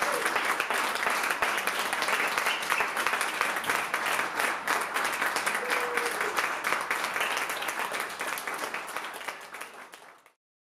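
Audience applauding with dense clapping, which fades over the last couple of seconds and then cuts off abruptly.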